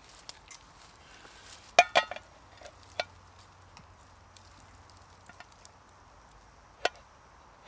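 Enamel plate knocking against the rim of a small metal camping pot while it is used as a lid to strain off pasta water. Two sharp ringing clinks about two seconds in, then a few lighter knocks.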